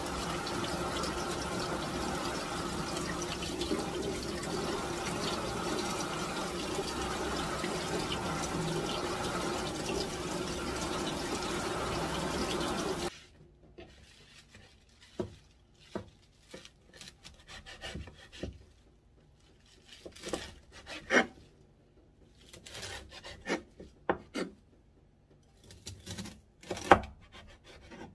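Kitchen tap water running steadily onto young radish greens in a bamboo basket over a stainless-steel sink; the water stops a little before halfway. A kitchen knife then cuts the greens on a wooden cutting board in sharp, irregular knocks.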